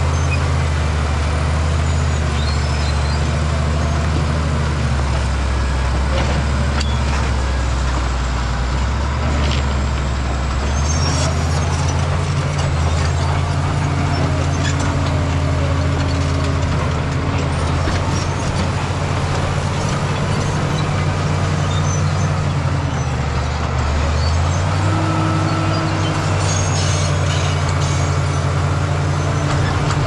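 Caterpillar D7G crawler bulldozer's diesel engine running hard while the blade pushes rock and earth; its note drops under load from about five to eleven seconds in, and again briefly near the end, then picks back up. Scattered knocks and clanks of the steel tracks and rocks.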